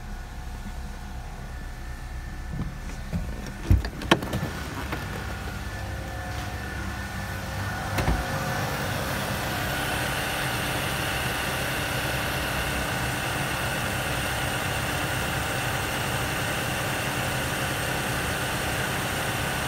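Ford Duratec HE 2.0 (CJBB) inline four-cylinder petrol engine idling steadily. It is heard first from inside the cabin, with a couple of sharp knocks about four seconds in and a thud about eight seconds in. After that it is heard from the open engine bay, louder and brighter.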